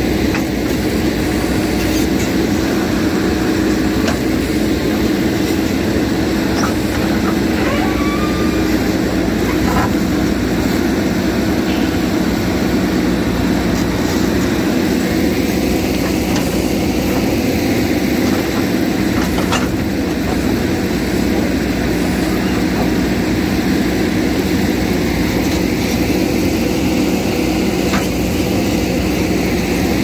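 JCB backhoe loader's diesel engine running steadily under load while the backhoe arm digs and scrapes soil, swelling a little twice as the hydraulics work. A few faint knocks come through over the engine.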